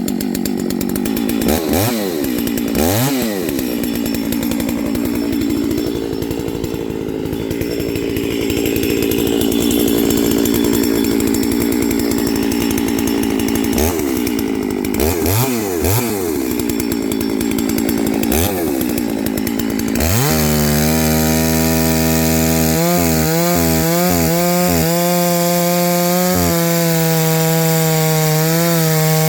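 Freshly cold-started 660 two-stroke chainsaw, not yet broken in, idling and revved in several short blips, with the pitch rising and falling each time. About two-thirds in it is held wide open and settles into a steady high note under load, cutting into wood.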